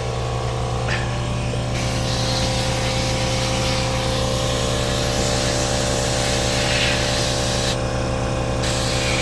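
Steady hum of a running motor with a hiss of spray or air over it, from equipment cleaning tie rod ends. The hiss drops away briefly twice, once near the start and once near the end, while the hum carries on.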